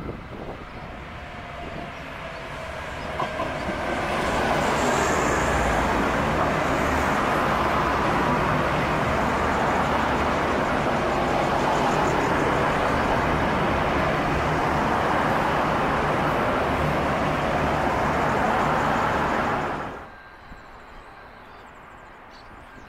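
Six-car V/Line VLocity diesel multiple unit approaching and passing close by at speed. Its engine and wheel noise builds over the first few seconds into a steady loud rush of passing carriages. The sound cuts off suddenly near the end, leaving quiet outdoor background.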